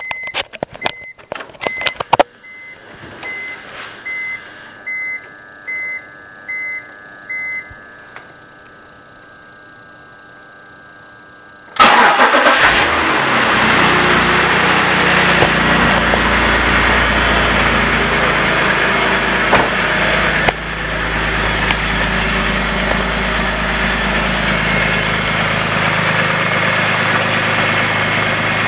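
BMW E46 330i, inline-six engine: a few clicks and a short run of dashboard warning chimes, then about twelve seconds in the engine cranks, catches and runs, its idle dropping a little later on. At idle it makes the galloping, clanking noise that remains after a new primary timing-chain tensioner.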